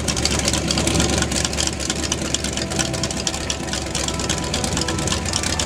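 A race boat's inboard engine idling steadily just after starting.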